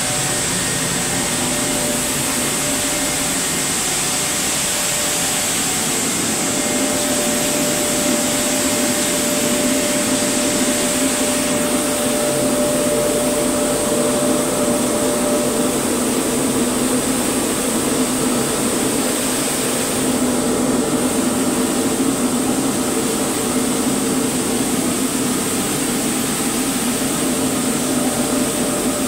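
Rice-processing plant machinery running steadily: a continuous whirring hum with a hiss over it, unbroken throughout.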